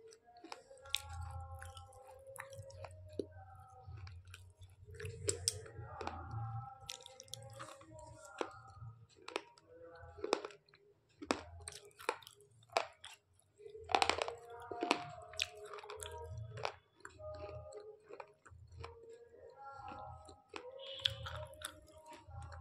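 Close-up chewing of slate pencil: repeated sharp crunches and grinding as the pieces are bitten and chewed, with the loudest burst of crunches about two-thirds of the way through.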